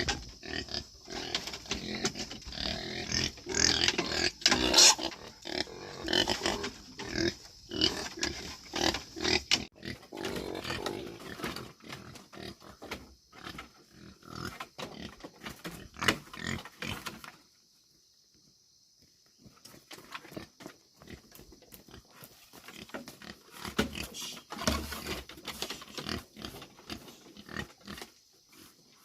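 Pigs grunting in a busy, irregular stream that stops briefly about two-thirds of the way in, then picks up more sparsely.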